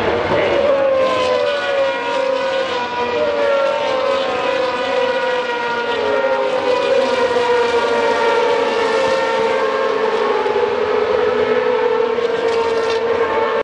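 A pack of GP2 single-seater race cars running at high revs, their naturally aspirated V8 engines screaming together. Several engine notes overlap, their pitch slowly falling.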